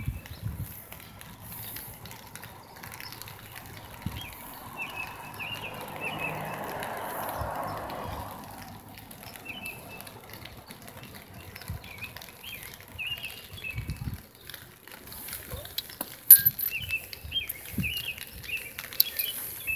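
Small birds chirping in short, repeated phrases, with a rushing noise that swells and fades a few seconds in and a sharp click near the end.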